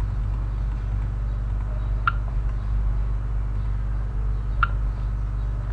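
Steady low hum with two short, sharp mouse clicks about two and a half seconds apart.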